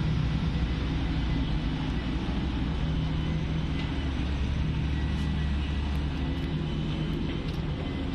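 Steady low rumble of city road traffic, with no single vehicle standing out.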